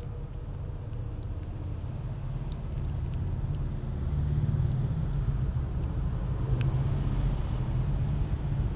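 Low, steady outdoor rumble that grows louder about four seconds in.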